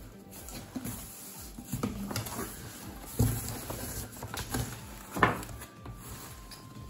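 Cardboard shipping box and boxed cookware being handled: rustling with scattered knocks, the sharpest about three seconds in and again just past five seconds.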